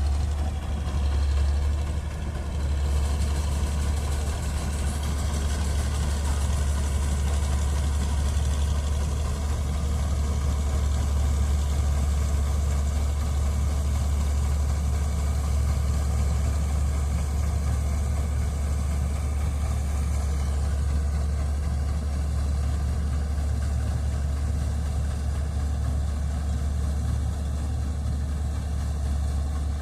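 Diesel engine of a Matharu 4000 4WD combine harvester running steadily with a deep, constant hum.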